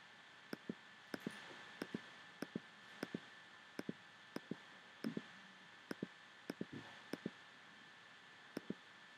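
Computer mouse button clicked about a dozen times, each click a quick press-and-release pair, roughly one every half second to second, as spots are dabbed out of a photo in Photoshop. A faint steady hiss runs underneath.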